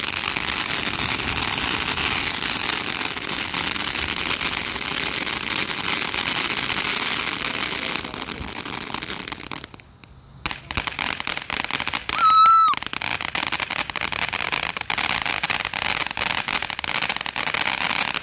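Large ground fireworks fountain spraying sparks with a steady dense hiss, which fades out about ten seconds in and gives way to rapid crackling pops from crackling stars. A short high whistle sounds about twelve seconds in, the loudest moment, and the crackling cuts off suddenly at the end.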